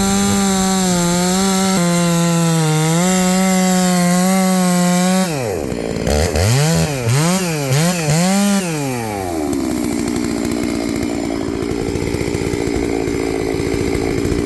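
Large two-stroke chainsaw, a clone of the Stihl 660, running at high revs for about five seconds. It drops off the throttle, is blipped up and down about four times, then settles to a steady idle.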